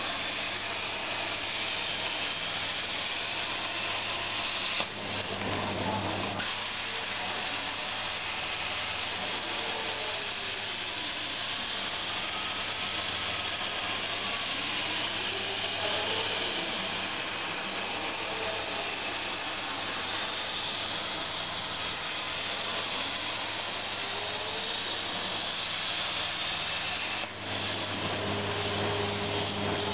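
CNC plasma cutter's torch cutting steel plate: a steady, loud hiss of the plasma arc, with a faint whine rising and falling in pitch several times as the torch traces its curves. The hiss dips briefly about five seconds in and cuts off near the end, where a steady hum is left.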